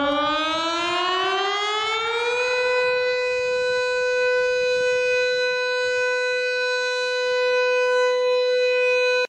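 Civil defense warning siren winding up, its pitch rising about an octave over the first two and a half seconds, then holding one steady tone until it cuts off suddenly at the end.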